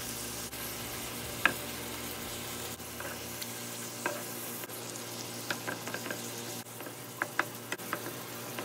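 Ground beef sizzling as it browns in a frying pan. A wooden utensil stirs and breaks up the meat, with sharp taps and scrapes against the pan here and there, most of them in the second half.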